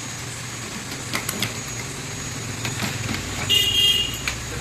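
Steady low hum with a faint high whine and a few sharp clicks. About three and a half seconds in there is a short, high horn-like beep lasting about half a second.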